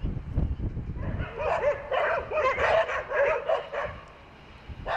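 A dog barking rapidly, about eight or nine short barks in under three seconds.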